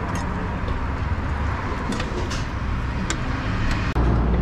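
Steady rumble of road traffic going by, with a few short, light clicks over it; the low rumble gets louder just before the end.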